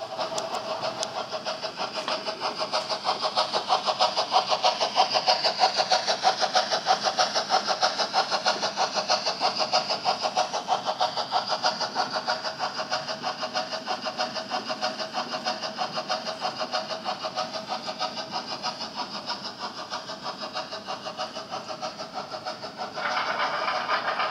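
HO-scale model BR 50 steam train running past with its tank wagons: a steady motor whine under a rapid, even beat of about five pulses a second. About 23 seconds in, a louder, brighter layer of sound joins in.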